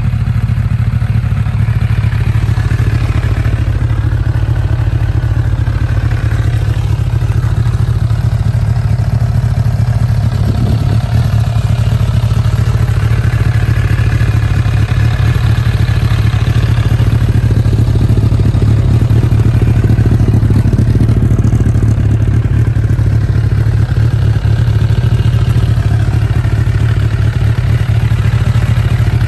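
Suzuki GSF750's inline-four engine idling steadily through an aftermarket muffler, with a strong, even low hum.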